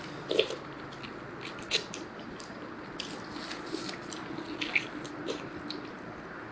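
A person biting into and chewing roast turkey drumstick meat close to the microphone: irregular short clicks and smacks of eating.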